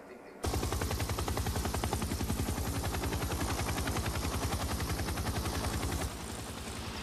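Helicopter in flight, its rotor making a rapid, steady beat. It starts abruptly about half a second in and eases slightly in level near the end.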